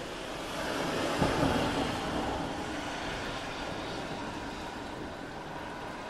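A car passing on a wet road: its tyre hiss swells to a peak a little over a second in, with two brief knocks at the loudest point, then fades away over the next few seconds. Steady rain hiss lies underneath.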